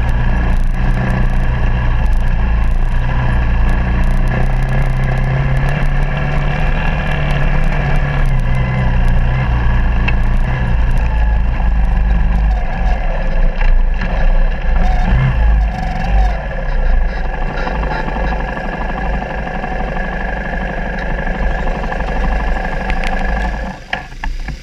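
Suzuki DR200's single-cylinder four-stroke engine running under way on a dirt trail, its pitch rising and falling with the throttle, over a heavy low rumble. Near the end the sound drops away as the bike slows to a stop.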